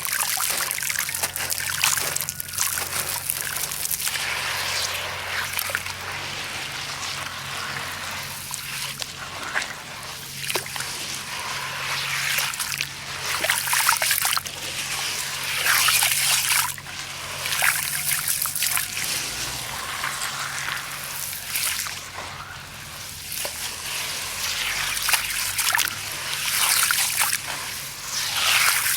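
Sand and chunks of concrete crumbling and crushing without pause, a dense grainy crackle with falling-grain trickles that swell louder now and then.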